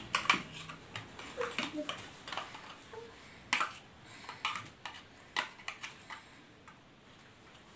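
A metal spoon tapping and scraping against a plastic cup and bowl as chopped tomato is scooped out: a scatter of light, irregular clicks and clinks.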